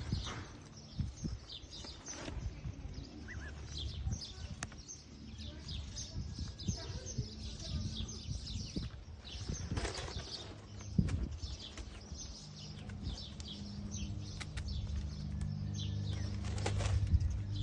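Small birds chirping and peeping over and over in short, high calls, with rustling and a few soft knocks. A low steady hum comes up over the last few seconds.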